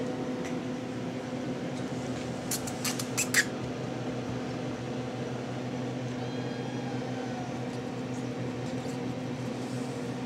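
Steady low electrical hum of room background noise, with a quick run of sharp clicks about three seconds in.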